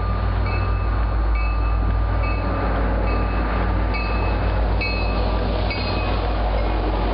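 An MBTA commuter train's EMD GP40MC diesel locomotive approaching and passing, with a steady low engine rumble. Over it a bell rings about once a second, stopping near the end.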